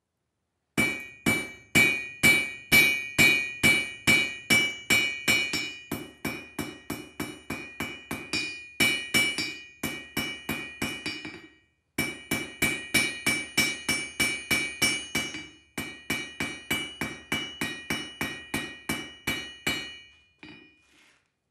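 Hand hammer striking red-hot quarter-inch steel stock on an anvil at about three blows a second, each blow ringing, with a short break about twelve seconds in. The hot end of the bar is being flattened and spread out to make a jelly-roll handle.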